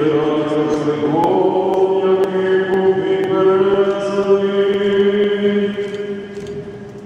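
Byzantine-rite liturgical chant sung by several voices in long held notes, stepping up in pitch about a second in and fading away near the end.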